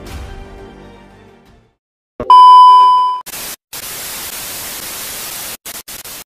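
Background music fading out, then a loud steady beep tone about a second long, followed by a hiss of TV-style static for about three seconds that cuts in and out near the end, an edited transition effect.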